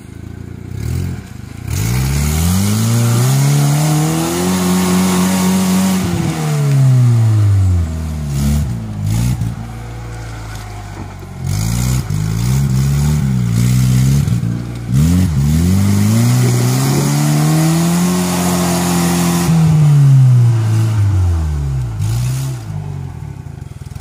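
Suzuki Vitara's engine revving hard twice, each time climbing in pitch for several seconds and then dropping, with a few short blips of throttle between. The tyres churn through deep mud as it pushes along the rut.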